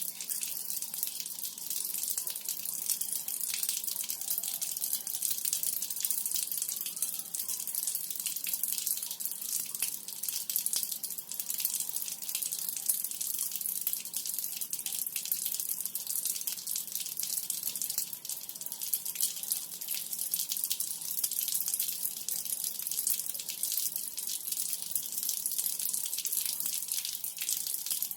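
Water falling and splattering steadily onto a hard floor, a continuous hiss of many small splashes.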